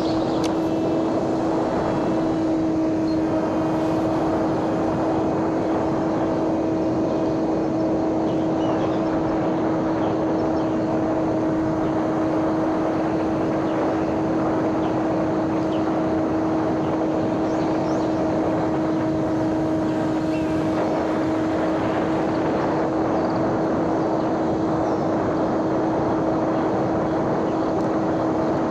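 Small homemade radio-controlled plane's electric motor and 5-inch propeller droning in flight at a steady throttle under autopilot. One unchanging hum sits over a steady noisy rush.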